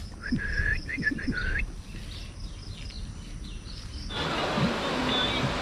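Birds chirping, several short curved calls in the first couple of seconds, over a low wind-like rumble. About four seconds in, the sound cuts abruptly to a louder, steady rushing noise.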